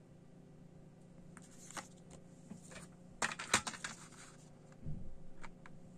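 CD jewel case and paper booklet being handled: rustling and scattered sharp plastic clicks, with the loudest cluster of clicks about three seconds in and a dull thump near the end.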